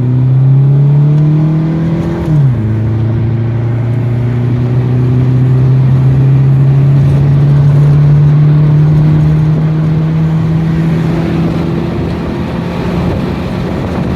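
Car engine exhausting through a Cherry Bomb glasspack muffler, heard from inside the cabin under hard acceleration. The engine note climbs, drops sharply with a gear change about two seconds in, then holds a steady pull in the next gear.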